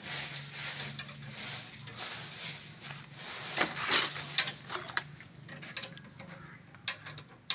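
Metal clinks and clanks from hand work on a tractor's rear wheel hub and brake assembly, a cluster of sharp knocks about four seconds in and a couple more near the end, over a faint steady low hum.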